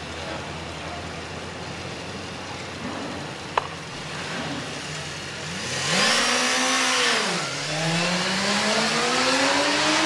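Two sport motorcycles at a drag-strip start line, engines idling, with a sharp click about three and a half seconds in. About five and a half seconds in the engines are revved up and drop back, then the bikes launch and accelerate away, their engine pitch climbing steadily.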